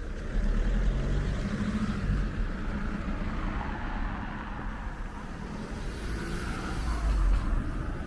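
Car engines running at low speed close by, with a steady low rumble; the loudest moment comes about seven seconds in as a car drives past.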